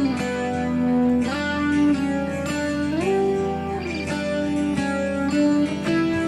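Background music led by a plucked guitar melody, its notes sliding up and down between pitches over a steady low accompaniment.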